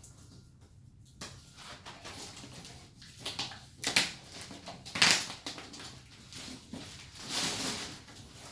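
Packaging being handled during an unboxing: irregular rustling and knocking in several short bursts.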